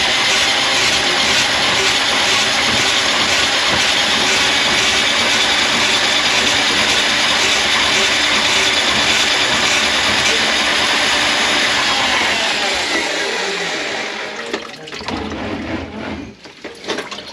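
An electric motor runs loudly and steadily together with rushing water, in a job clearing a plugged kitchen sink drain. About 13 seconds in it is switched off and winds down with a falling whine, and a few knocks and clatters follow.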